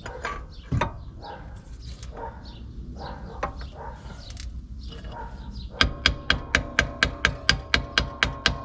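Faint bird chirps in the background, then near the end a fast run of sharp metallic clicks, about five a second, each leaving a ringing tone from metal tools or parts being worked.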